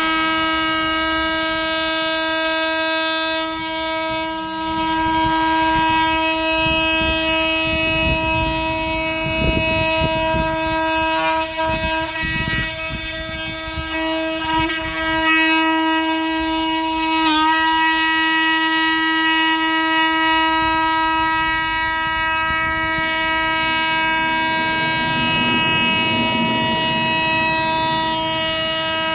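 Oscillating multitool running with a steady high whine as its blade cuts a notch in maple stair nosing. Rougher cutting noise comes and goes partway through.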